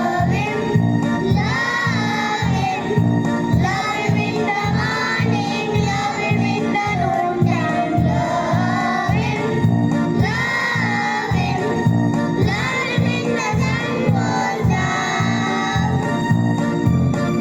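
Children singing a prayer song together, accompanied by an electronic keyboard playing organ tones with a steady beat.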